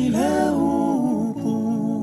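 Music: a slow melody of gliding, held notes over a steady low accompaniment.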